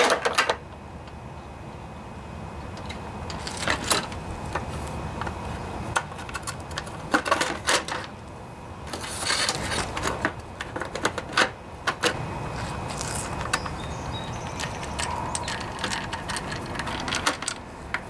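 Red plastic engine cover being fitted back over a Briggs & Stratton lawnmower engine: scattered clicks, knocks and rattles of plastic and metal parts being handled and set in place.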